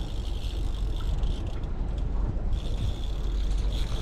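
Steady low rumble of a trolling fishing boat under way, with wind on the microphone and a few faint mechanical clicks while a fish is played on a rod.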